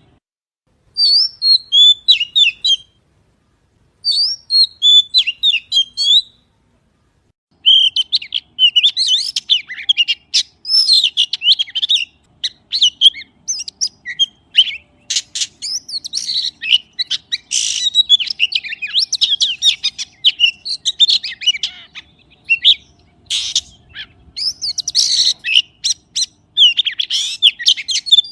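Magpie calls: rapid runs of high chirps and harsh squawk-like notes. They come in short bouts with brief silent gaps over the first seven seconds or so, then go on almost without pause.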